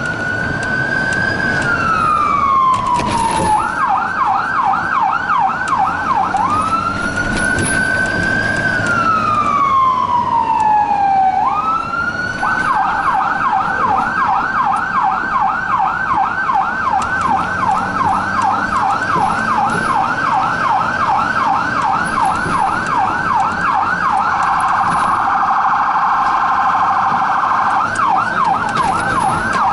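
Electronic siren of a Ford Super Duty fire-rescue truck, heard from inside its cab on an emergency response. It starts on a slow wail, rising and falling over about four seconds. It switches briefly to a rapid yelp, goes back to one more wail, then holds the yelp from about 12 seconds in. It changes to an even faster warble for a couple of seconds near the end before the yelp returns.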